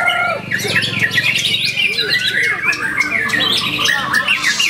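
White-rumped shama (murai batu) singing a fast, varied run of whistles and chattering notes that sweep up and down without a break, with other caged songbirds singing over it.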